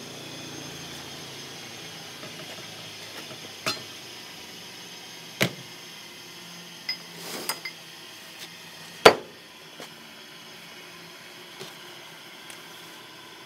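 Metal connecting rods being handled and set down on a workbench: a series of short sharp clinks and knocks, the loudest about nine seconds in, over a faint steady hum.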